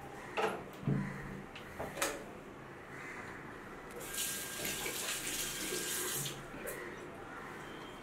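Bathroom sink tap turned on and running for about two seconds, starting about four seconds in and then shut off. Before it, three short knocks.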